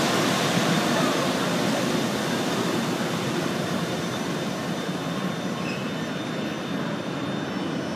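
Bombardier CITYFLO 650 rubber-tyred automated train pulling away along an elevated guideway. Its steady rushing running noise, with a faint high whine, slowly fades as it recedes.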